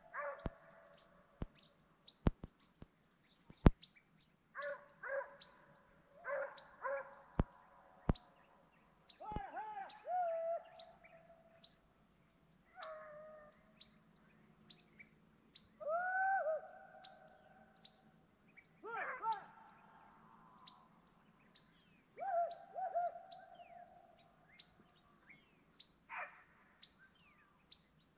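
Distant hunting hounds baying now and then, drawn-out pitched bays every few seconds, over a steady high insect drone. A few sharp clicks sound in the first ten seconds.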